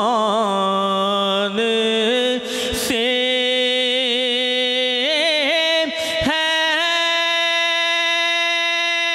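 A man singing a naat into a microphone, drawing out wavering, ornamented runs on a syllable, then settling into one long steady held note from about seven seconds in.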